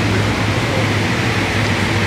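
Steady, loud machine drone: a constant low hum under an even hiss that does not change.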